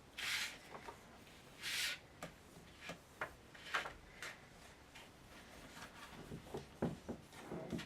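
Hands rubbing and pressing glued cardstock flat: two brisk swishes of paper being smoothed down, then a series of light taps and scrapes as the paper is handled.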